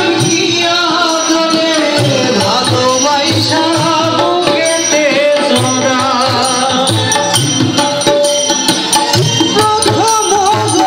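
A live band playing loud through a PA system: a melody line over a steady beat of drums and percussion.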